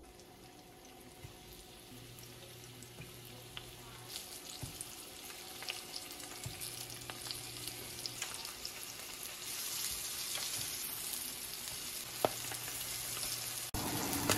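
Flour-dredged smelt frying in vegetable oil in a non-stick pan: a sizzle with small crackles that grows louder as more fish are laid in, strongest from about two-thirds of the way through.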